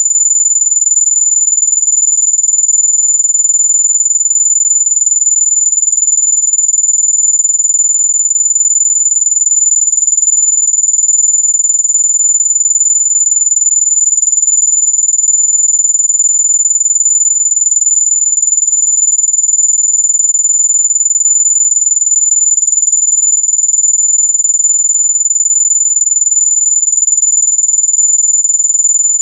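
Electronic mosquito-repellent tone: one very high-pitched, unbroken whistle-like tone held at a constant pitch and level, meant to drive mosquitoes away.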